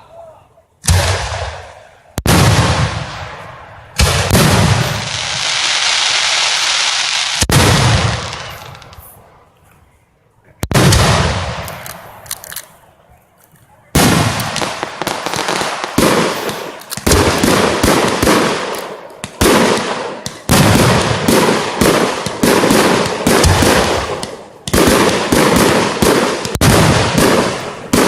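Fireworks going off. First come single loud bangs, each fading away slowly, and a stretch of a few seconds of steady hissing crackle. From about halfway there is a rapid string of bangs, a little more than one a second.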